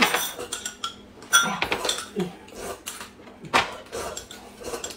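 Metal spoons clinking and scraping against glass cups and a tin can while eating: a string of scattered sharp clinks, some briefly ringing.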